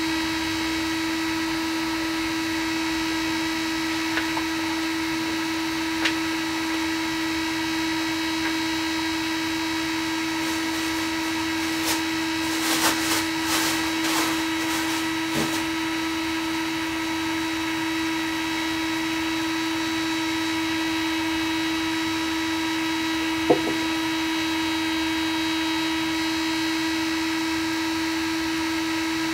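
A home-built 3D printer standing idle with its fans running, a steady hum with a whine of overtones above it. A few light clicks come through, a small cluster of them near the middle and one sharper click about four-fifths of the way through.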